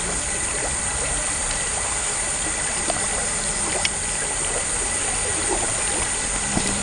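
Water running steadily through a culvert into a canal: an even, unbroken trickling rush.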